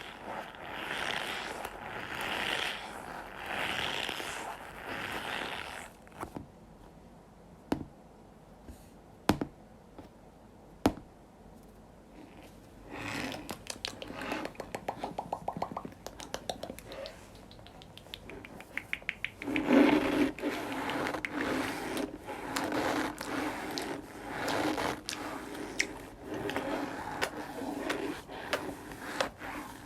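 Slime being handled up close: squished, poked and stretched. It starts with soft airy swishes, then single sharp clicks, then a fast run of popping clicks, and from about two-thirds of the way in, dense wet crackling and squelching.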